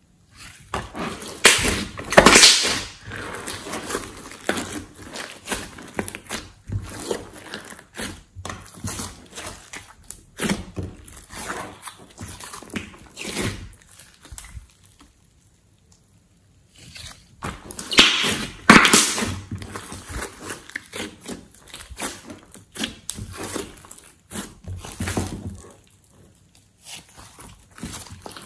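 Hands squeezing, stretching and folding a large mass of glossy slime: an irregular run of wet squelches, clicks and pops. It is loudest about two seconds in and again near eighteen seconds, with a short lull around fifteen seconds and another near the end.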